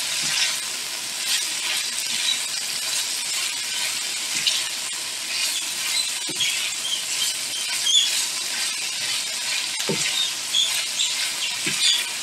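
Sliced onions and bacon frying in butter in a frying pan: a steady sizzle with scattered small crackles, stirred with a spatula that knocks softly against the pan a few times in the second half.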